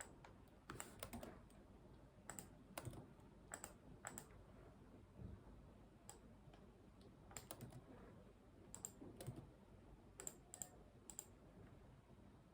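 Faint computer keyboard typing in short, irregular runs of a few keystrokes with pauses between.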